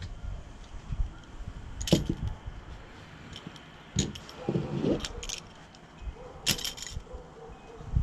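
Irregular light knocks and metallic clinks from handling a door screen frame and repair tools, with a few sharper clicks about 2, 4 and 6.5 seconds in.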